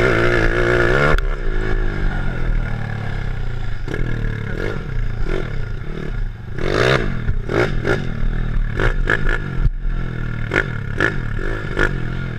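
Honda ATC 70 three-wheeler with a swapped-in 140cc four-stroke engine being ridden hard, revving up and down through its four-speed gearbox. The revs drop sharply about a second in. Repeated clattering knocks run through it as the machine bounces over the rough track.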